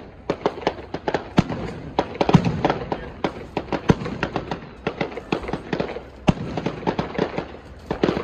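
Aerial fireworks bursting: a rapid, irregular series of sharp bangs and crackles, several a second, with a few louder booms among them.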